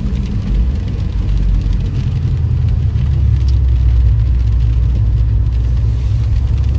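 Subaru WRX heard from inside the cabin: a low, steady rumble of engine and tyres on a wet road as the car drives and turns, growing a little louder about half a second in.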